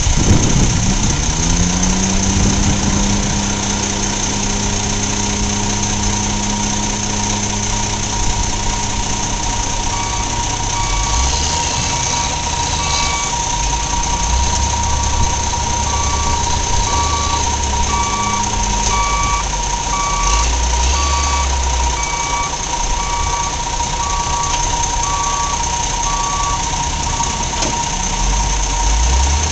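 Heavy truck diesel engines running at the roadside, one rising in pitch as it pulls away in the first couple of seconds and then running steadily. About a third of the way in a vehicle's reversing alarm starts beeping about once a second and keeps on through most of the rest.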